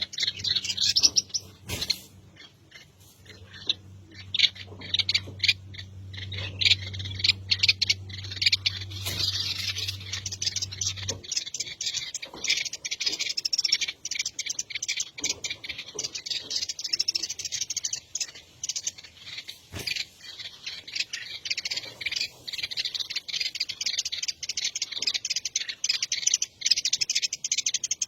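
Birds chirping in dense, rapid runs of high calls throughout. A low steady hum underneath stops about eleven seconds in.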